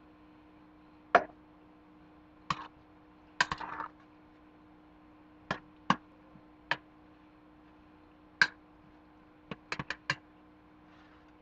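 Sharp clinks and knocks of a metal pot and kitchen utensils being handled on a stovetop: about a dozen separate strikes, with a quick run of four near the end, over a faint steady hum.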